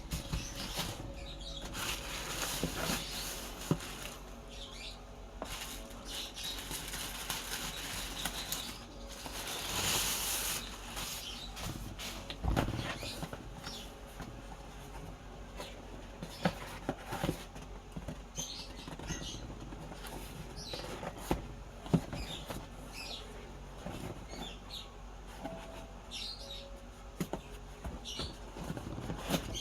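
Toy packaging being handled and opened: irregular rustling and scraping of cardboard and plastic, with scattered sharp clicks and brief high squeaks.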